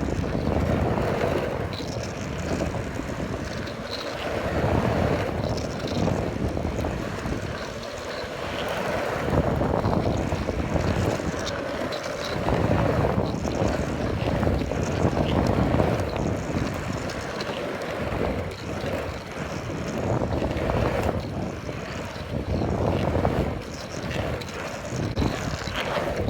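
Surfskate's urethane wheels rolling on pavement: a continuous rough rumble that swells and fades every few seconds.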